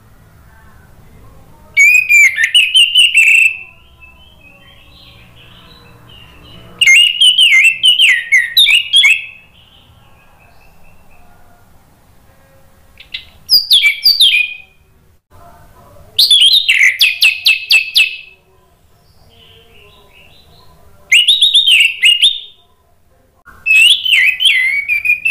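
Orange-headed thrush singing: six loud bursts of fast, varied whistled phrases, a few seconds apart, with quiet pauses between.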